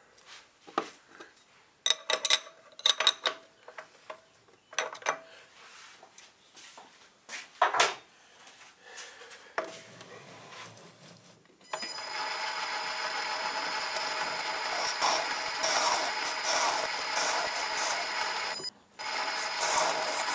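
Metal clicks and scrapes as a collet chuck's nut is tightened on a small metal lathe with a pin spanner. About twelve seconds in the lathe starts and runs with a steady whine and cutting hiss as the tool turns a high-tensile steel valve blank, breaking off briefly near the end.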